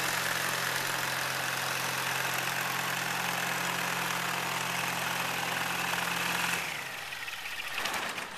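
Kitfox light aircraft's engine and propeller running steadily at idle, then cut off about six and a half seconds in, the sound winding down in pitch as the propeller slows.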